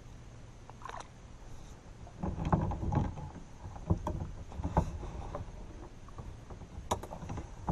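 Handling noise aboard a plastic kayak: low rumbling and light knocks as a fishing rod and reel are handled, with a few sharp clicks, one about a second in and another near the end.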